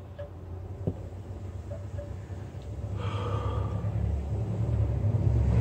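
A man blowing out a long breath through rounded lips about three seconds in, his heavy breathing a reaction to the burn of an extremely hot sauce. A low rumble builds up underneath and grows louder toward the end.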